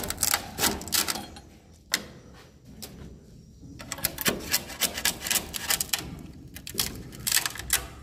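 Rapid, irregular runs of sharp clicks, typical of edible-nest swiftlets echolocating in the dark nesting house. The clicks come in two main bursts with a quieter stretch between them.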